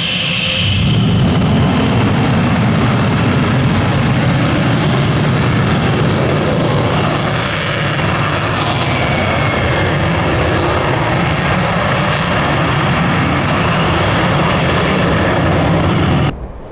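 Twin Pratt & Whitney F100 turbofan engines of McDonnell Douglas F-15E Strike Eagles running on the ground: a loud, steady jet rumble with a hiss over it. It cuts off abruptly near the end.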